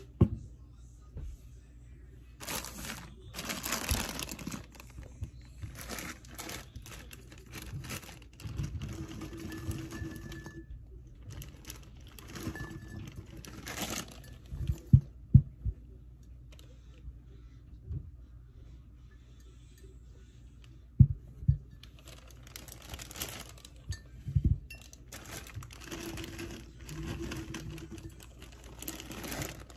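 A plastic bag of fresh cranberries crinkling and rustling as it is torn open and handled, and cranberries being dropped by hand into a glass pitcher, with several sharp knocks in the middle.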